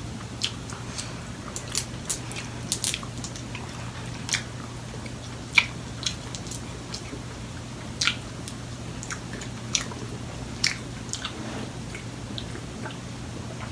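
Close-miked eating of seafood boil: chewing with scattered short, sharp mouth clicks and smacks, over a steady low hum.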